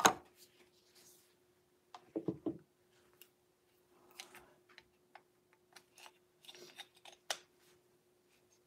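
Scattered small clicks and taps of a charging cable and plug being handled and pushed into a socket, with a sharper knock right at the beginning and a faint steady hum underneath.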